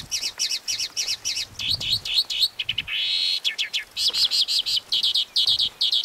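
White-banded mockingbird (Mimus triurus) singing: a fast, varied run of sharp, high repeated notes, with a longer harsh buzzy note about three seconds in.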